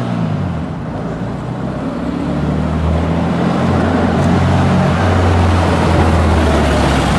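Car engine running, its low note shifting in pitch, with a hiss that grows louder toward the end.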